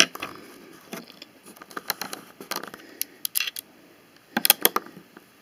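Small plastic clicks and taps of Lego pieces being handled as a rubber-band Lego launcher is loaded, with a quick cluster of sharper clicks about four and a half seconds in.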